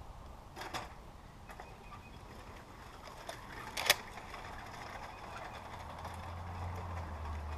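A single sharp crack about four seconds in, short and without a long tail, with a fainter clack near the start. Low background noise runs throughout, and a low steady hum comes in near the end.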